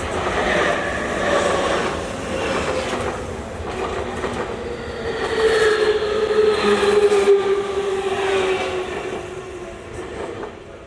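Tokyu Toyoko Line electric commuter train passing close by, with a whine that slowly falls in pitch and several knocks from the wheels on the rails. It grows louder toward the middle and fades near the end.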